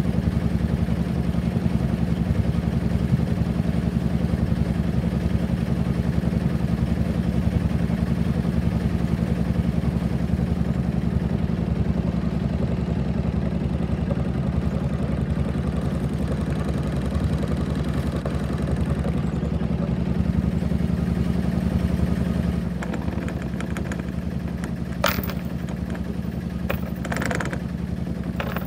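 Small sailboat's motor running steadily at idle, easing slightly near the end, with a few sharp clanks and rattles as the anchor is hauled in at the bow.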